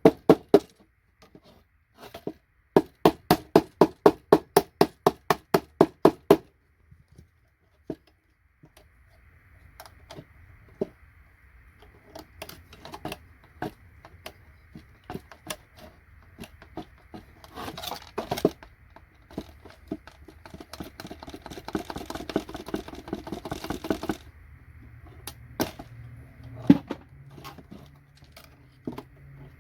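Hammer tapping rapidly on a paint scraper wedged under a connector on a computer circuit board, about five sharp metal strikes a second for a few seconds. It is followed by scattered clicks, a stretch of scraping and clattering as the board and parts are handled, and a few single knocks near the end.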